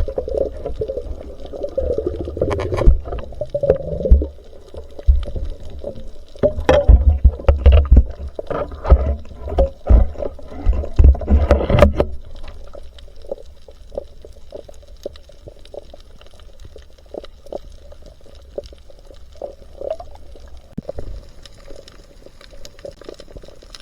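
Water sloshing and bubbling close to the microphone, with knocks and clicks. It is busy and loud for about the first twelve seconds, then settles to a quieter wash with scattered clicks.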